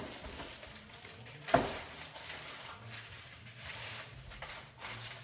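Someone rummaging through a shipping box, with one sharp knock about a second and a half in.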